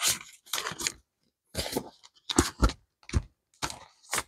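Paper bills and the clear plastic sleeves of a zippered binder being handled: a series of about seven short rustles and crinkles.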